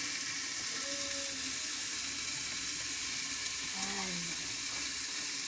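Steady sizzling hiss of food cooking in a pan, with faint voices in the background.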